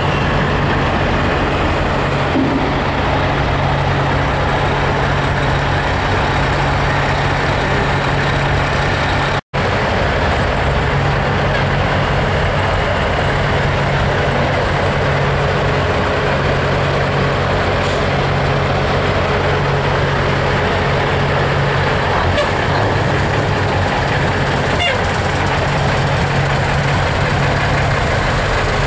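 Heavy truck engines running as big rigs pull slowly past, a steady low drone. The sound cuts out for an instant about nine seconds in.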